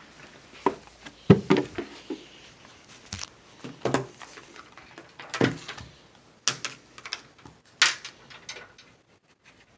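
Handling noise from unpacking a gaming headset and its long cord: irregular clicks, knocks and rustles, fading out near the end.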